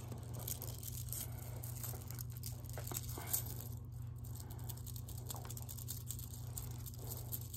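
Soft rustling and small scattered clicks as beaded bracelets are slid onto a wrist close to the microphone, over a steady low hum.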